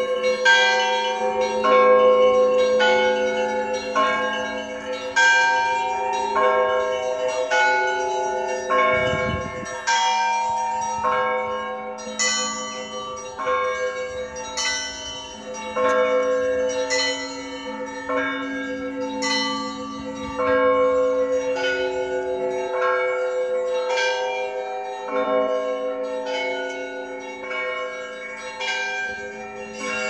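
Russian Orthodox church bells ringing: the smaller bells are struck in a quick, repeating pattern, about one strike a second, over the steady ringing of the larger, lower bells.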